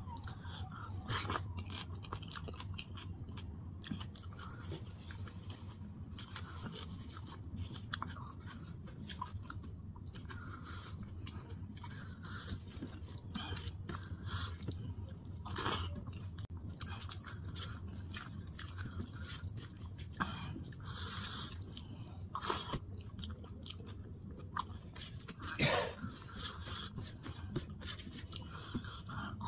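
Wet chewing and mouth sounds of a person eating dal and rice by hand, with irregular soft smacks and clicks and a few louder ones, plus the squish of the hand mixing rice on a steel plate, over a steady low hum.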